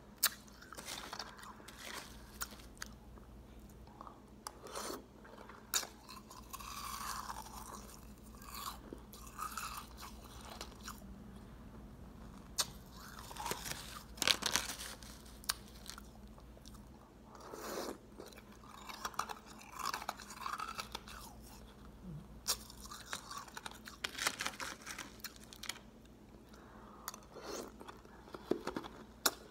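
Crushed ice being chewed: irregular sharp crunches and crackles as the ice breaks between the teeth.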